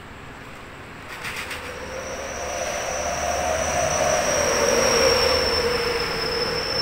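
A passing train, growing louder from about a second in, with a long, steady high squeal of wheels on rail over a lower wavering tone.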